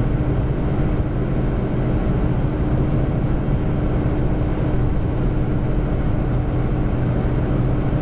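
Steady drone of a Kenworth W900L's Caterpillar 3406E diesel engine at highway cruise, mixed with heavy wind and road noise, picked up by a camera mounted on the truck's hood.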